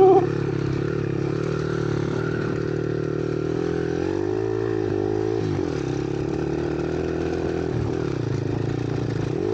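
Small single-cylinder Lifan engine of a monkey bike running steadily, its revs rising and falling back about four seconds in, then dipping and climbing again near the end.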